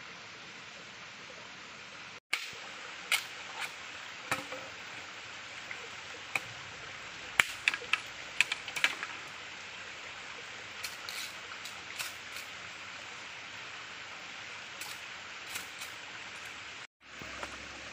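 Stream water running steadily, with a series of sharp knocks and clicks from a machete chopping and trimming a bamboo pole, the loudest strikes near the middle.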